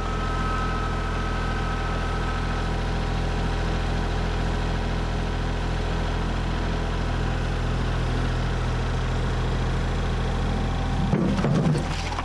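Kubota compact tractor's diesel engine running steadily as it drives with a loaded front bucket, with a thin whine that fades after about three seconds. Near the end there is a short clatter as the loader bucket comes down among the creek rocks.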